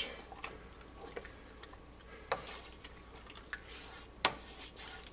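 Wooden spoon stirring thick stew in a metal stockpot: soft wet stirring and scraping, with a few light knocks of the spoon against the pot, the sharpest about four seconds in.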